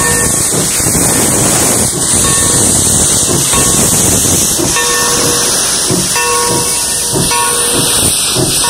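Steam locomotive Tremont & Gulf #30 pulling its train past with a loud, steady hiss of steam venting from its open cylinder cocks. Beneath the hiss, the train rolls by with a low rhythmic beat.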